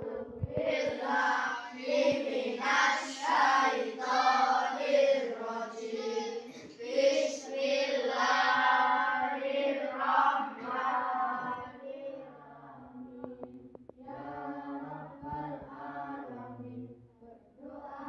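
A class of schoolchildren reciting a prayer aloud together in a chanting cadence. The voices are loudest for about the first twelve seconds, then go quieter.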